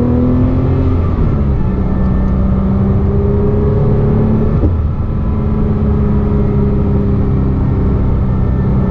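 2007 Porsche Cayman S flat-six engine and exhaust under hard acceleration, revving up past 4,000 toward 5,000 RPM. The pitch climbs and drops back twice. At these revs the exhaust note covers the accessory-belt whine, which is worst around 3,000 RPM and comes from a worn water pump bearing.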